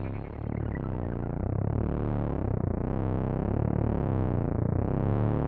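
Dark, creepy synthesized low hum made of several sustained low tones that swell and ebb about once a second.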